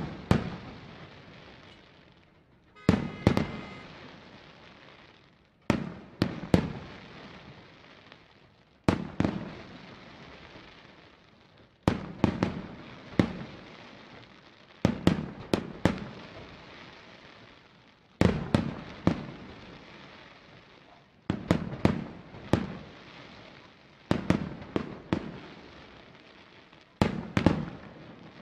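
Aerial firework shells from a La Rosa International Fireworks display bursting in salvos. A cluster of several sharp bangs comes about every three seconds, each dying away over a second or two.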